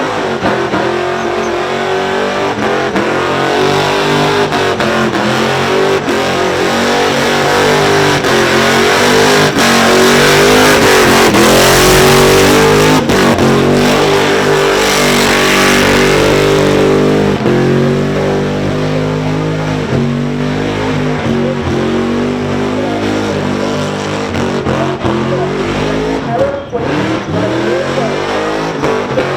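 Supercharged Holden Commodore engine held at high revs during a burnout, its pitch stepping up and down as the throttle is worked, with tyre-spinning noise over it that is loudest midway through.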